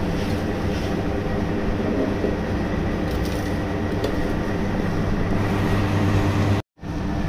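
Electric ice cream batch freezer running, a steady motor and compressor hum with its dasher churning the ice cream mix. The sound breaks off for a moment near the end.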